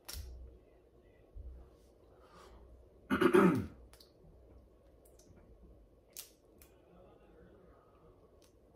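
A man clears his throat once, sharply, about three seconds in. A few faint clicks and cracks come from crawfish shells being peeled by hand.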